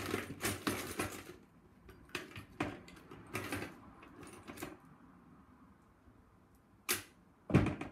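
Rummaging through a box of craft supplies: a run of short rustles and clatters as items are handled, then a sharp click and, just before the end, a louder knock.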